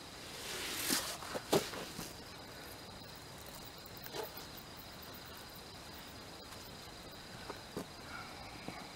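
Steady high-pitched drone of night insects, with a few short scuffs and knocks from a landed bull shark being handled on sand, the loudest about a second and a half in.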